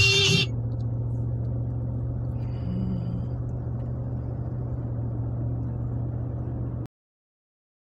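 Steady low drone of a car cruising at highway speed, heard from inside the cabin: engine and tyre-on-road noise. It cuts off suddenly near the end.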